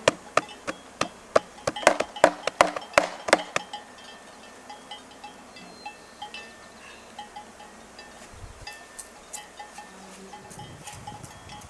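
A wooden bee package being knocked over the open hive to shake out honey bees that won't come out: a quick run of sharp knocks for the first few seconds, then lighter, scattered taps.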